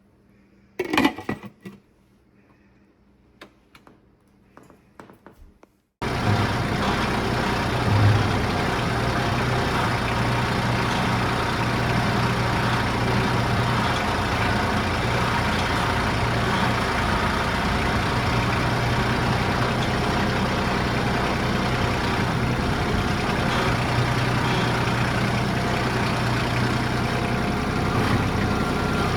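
A few knocks and clicks at low level, then from about six seconds in an engine running steadily at a constant speed.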